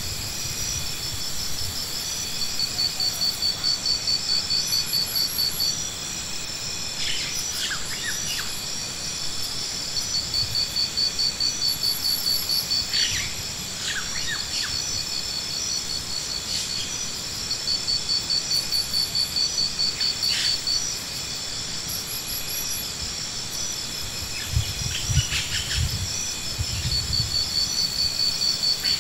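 Insects singing outdoors: a steady high-pitched buzz, overlaid by rhythmic pulsing phrases a few seconds long that start and stop over and over. A few short chirps come in here and there.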